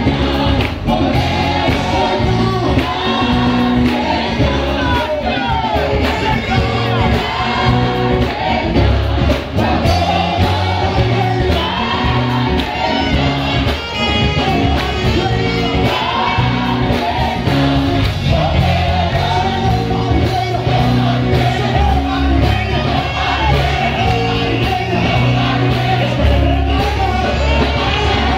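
Live gospel worship music: a small group of singers singing together into microphones over a band with a steady, heavy bass line.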